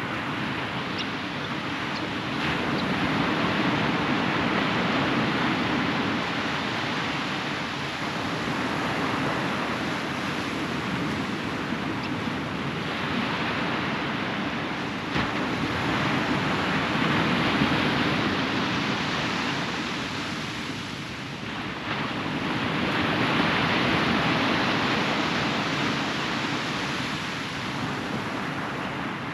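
Ocean waves breaking and washing up on a beach, the surf swelling and ebbing every several seconds, with some wind on the microphone.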